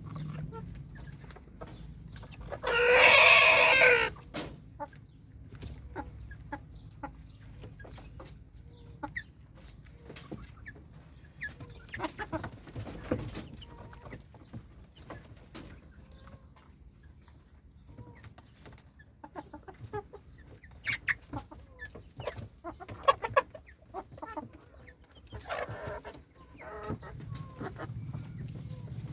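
Chickens clucking, with one loud call lasting over a second about three seconds in, then scattered short calls.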